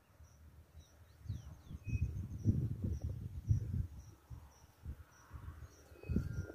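Quiet outdoor ambience: a faint, high chirp repeating evenly about twice a second, a few brief faint bird notes, and irregular low rumbling on the microphone.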